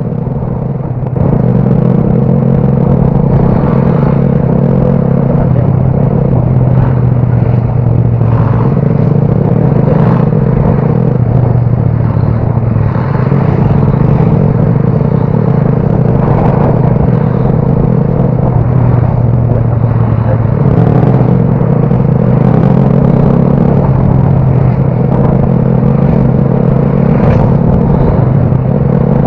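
Motorcycle engine running steadily under way, a constant low drone that steps up in loudness about a second in and then holds.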